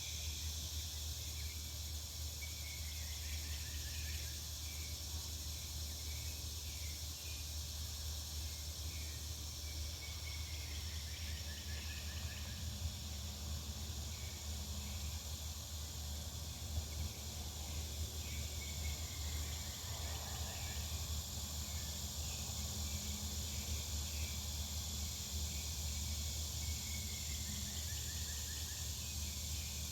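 Backyard ambience: a steady chorus of insects such as crickets, with a bird repeating a short descending trill about every eight seconds, over a low steady hum.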